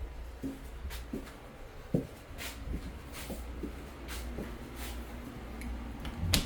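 Scattered light knocks and clicks at irregular intervals over a low steady hum, with one sharper knock near the end.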